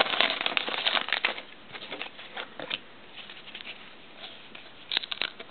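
Foil wrapper of a trading-card pack crinkling as it is torn open, loud and dense for about the first second. Softer rustling and light clicks follow as the cards are slid apart and handled, with a few sharper rustles near the end.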